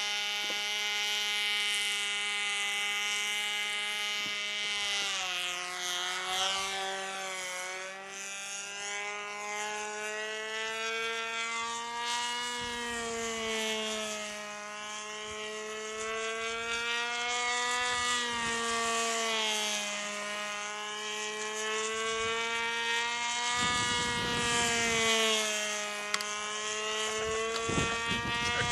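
Small model-airplane engine running at high speed while the plane flies, its steady buzz rising and falling in pitch as it passes and turns.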